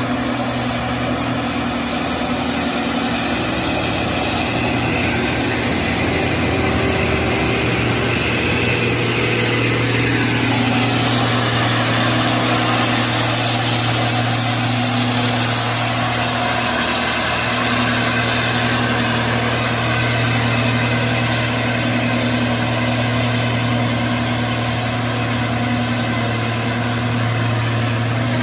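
Heavy diesel truck engines running as a red dump truck and a bus drive past on the road, a steady low drone that swells as the truck goes by about halfway through.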